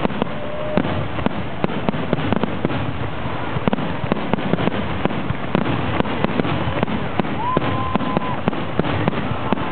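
Fireworks finale: a dense, continuous barrage of shell bursts and crackling, many reports a second with no let-up.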